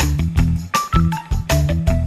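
Background music with a steady beat, a strong bass and a short high melody line.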